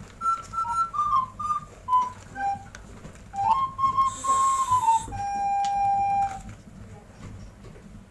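A whistled melody of clear single notes, with one long held note past the middle. Tap water runs briefly about four seconds in, with light handling clicks from the plastic bag and measuring cup.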